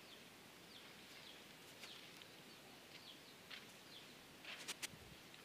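Near silence with faint, scattered bird chirps, short high notes that drop in pitch. A few sharp clicks come close together near the end.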